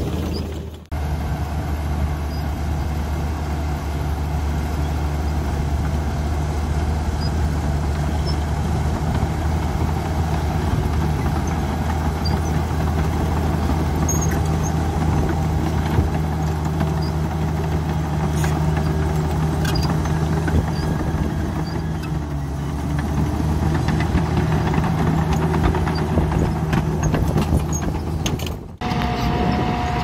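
Crawler bulldozer's diesel engine running steadily under load as it pushes dirt, a constant low drone with a slight waver in pitch a little past the middle.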